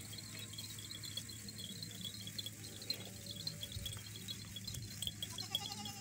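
Crickets chirping steadily in a fast, pulsing rhythm, over a steady low hum.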